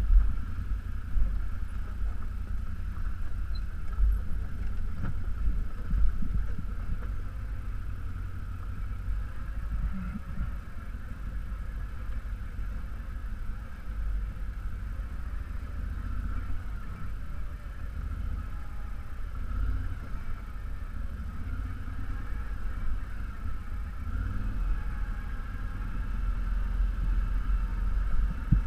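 All-terrain vehicle engine running steadily at low speed, with a heavy low rumble and a few short thumps.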